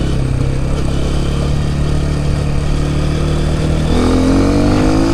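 Dirt bike engine running steadily at low speed, then about four seconds in its note changes and climbs as the bike accelerates.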